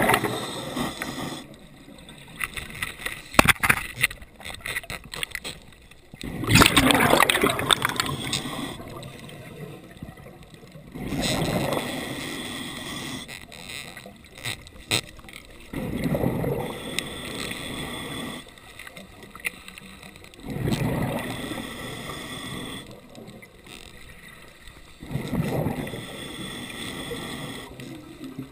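Underwater sound of a diver's exhaled bubbles gurgling, a surge about every four to five seconds, with a few sharp knocks of gear against rock.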